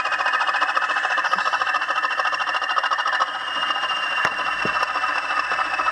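Sound-decoder recording of a Class 20 diesel locomotive's English Electric engine running, played through the model's small twin speaker: a steady, fast engine beat with little bass, and a faint whine climbing slightly in pitch. A couple of sharp clicks come about four seconds in.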